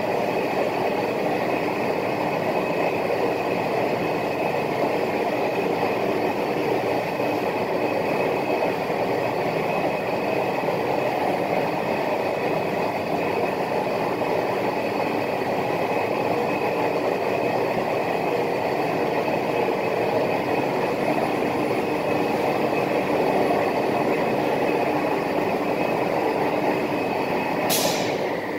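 CNC router running steadily: a constant spindle whine over dense machine noise, with one sharp click near the end.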